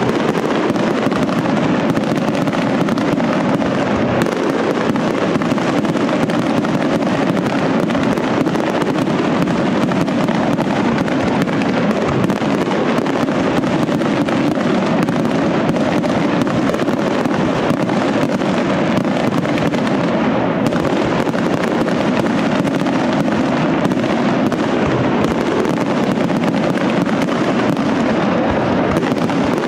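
Castillo aerial fireworks display: a dense, unbroken barrage of shell bursts and crackle, steady in loudness throughout with no pauses between shots.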